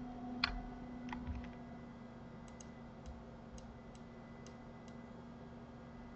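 A few faint clicks from a computer mouse and keyboard while sculpting, sharper ones in the first second and a half, then lighter ticks spaced out. A steady low hum runs underneath.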